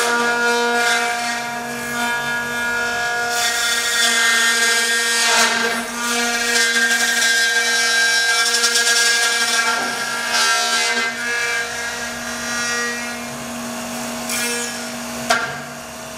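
Spindle motor of a uPVC copy routing machine running with a steady whine while its router bit mills a slot in a uPVC window profile, the cutting coming in stretches of harsh rasping noise. Near the end the motor cuts off with a click and winds down.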